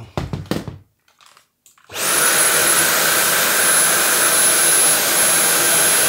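Dyson cordless handheld vacuum switched on about two seconds in: its motor spins up almost at once, with a high whine rising to a steady pitch, then runs steadily with a loud rush of air. Before it starts there are a few light handling knocks and a moment of quiet.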